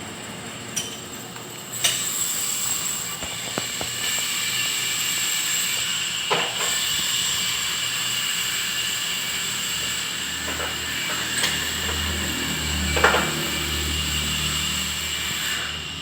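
A steady hissing whine from workshop equipment in a motorcycle service bay starts about two seconds in and stops just before the end. A few sharp clicks and knocks fall within it, and there is a low hum in its later part.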